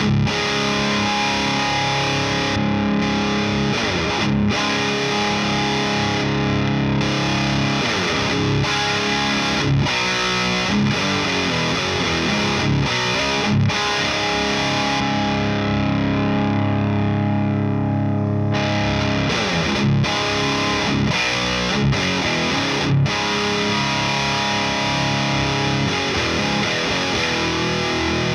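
Electric guitar played through an SD-1-style overdrive pedal into a tube amp: distorted chords and riffs with frequent slides, played continuously.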